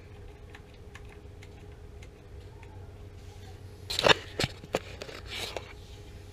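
Faint light ticking, then three or four loud sharp knocks in quick succession about four seconds in, followed by a brief rustle.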